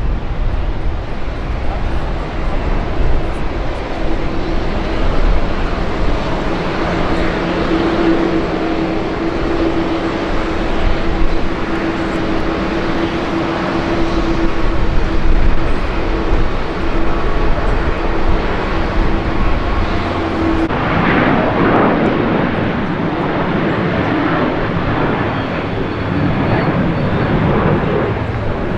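Jet aircraft noise at an airport: a steady drone with a constant hum. About two-thirds of the way through it changes abruptly to the rushing noise of a Boeing 737 jet airliner climbing out after takeoff.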